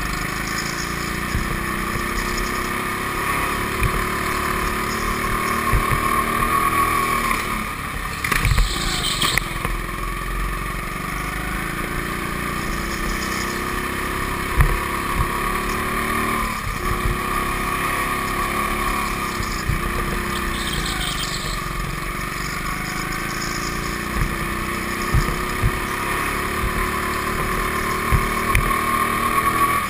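A go-kart's motor running at speed, its pitch climbing and falling again and again as the kart speeds up and slows, with sharp drops about 8 and 17 seconds in. Scattered short knocks sound over it.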